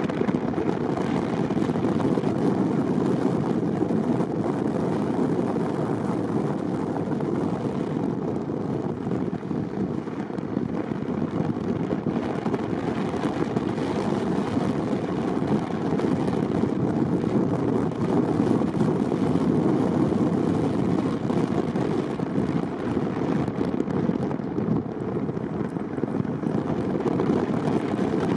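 Steady road and tyre noise of a car being driven, an even rumble that holds at one level throughout.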